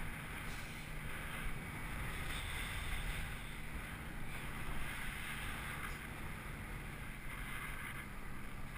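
Wind rushing over a body-worn GoPro's microphone high up on a parasail: a steady hiss with a low, even drone underneath.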